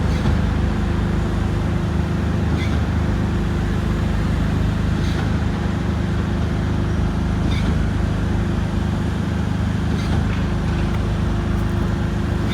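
Piling rig's diesel engine running steadily, a constant low hum of several tones with a higher whine that comes and goes. Road traffic can be heard under it.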